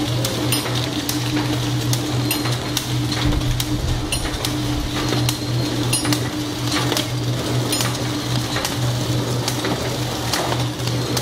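Horizontal flow wrapping machine running, with a steady low hum and irregular sharp clicks roughly once a second.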